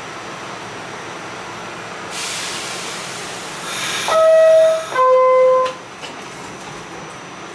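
NYC subway R46 car's door-closing chime: a two-tone descending 'ding-dong', a higher tone then a lower one, each held just under a second, over the steady hum and hiss of the stopped train. The chime signals that the doors are about to close.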